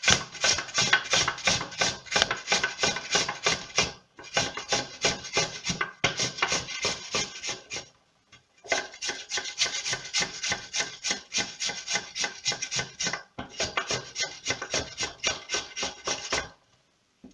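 Peeled cucumber grated lengthwise on a metal box grater: fast, even rasping strokes, about four a second. They break off briefly about four and eight seconds in and stop shortly before the end.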